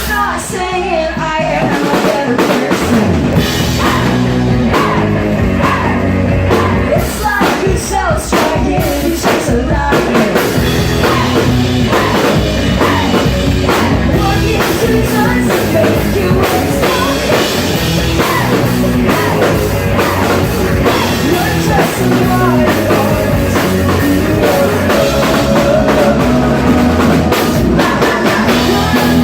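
Live rock band playing loudly on two electric guitars, bass guitar and drum kit.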